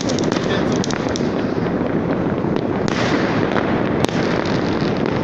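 Many fireworks and firecrackers going off all over a city at once: a dense, continuous crackle of overlapping bangs, with a few sharper cracks standing out about three and four seconds in.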